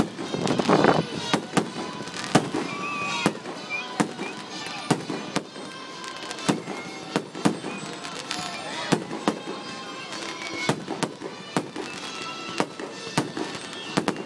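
Aerial fireworks bursting: an uneven string of sharp bangs and crackles, several a second.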